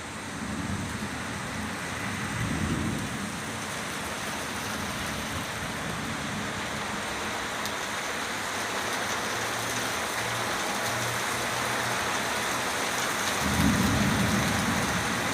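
Heavy downpour of rain falling steadily, with two low rolls of thunder: one in the first few seconds and a louder one near the end.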